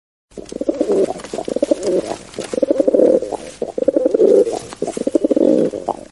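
Pigeons cooing: four throbbing coo phrases of about a second each, low and pulsing, from birds on a sill where one is puffed up with its tail fanned in display.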